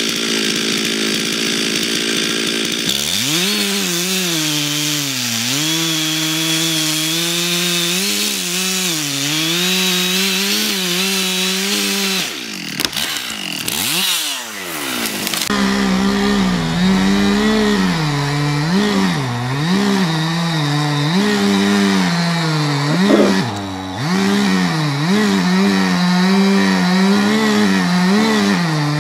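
Two-stroke chainsaws cutting into large tree trunks at full throttle, the engine note dipping and recovering as the chain loads up in the wood. About halfway through there is a falling then rising rev, then a second saw cutting.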